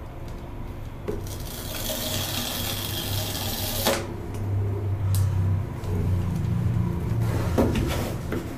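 Paper tear strip on an iPad Pro box being pulled off, a steady tearing hiss of about three seconds that ends with a sharp snap. The cardboard box is then handled and turned over on a desk, with light knocks and rustles.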